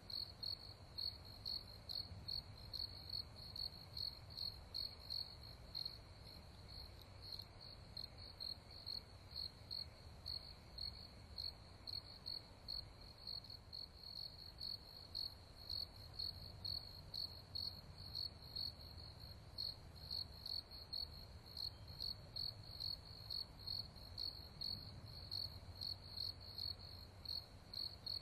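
Cricket chirping steadily at night, short high chirps in an even rhythm of about two a second.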